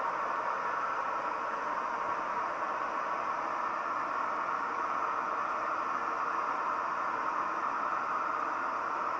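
Camp Chef Mountain Series Stryker canister stove burner running with a steady hiss, heating a pot of water that is already steaming, close to the boil.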